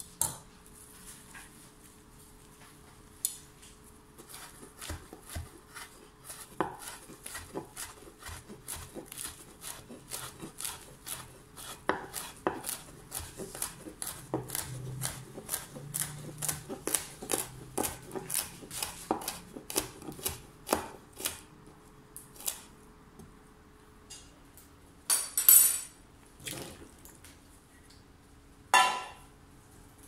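Chef's knife chopping fresh mint on a wooden cutting board: a long run of quick knife strikes on the board. Near the end, a few loud ringing clinks as a metal bowl knocks against a glass bowl while diced cucumber is tipped in.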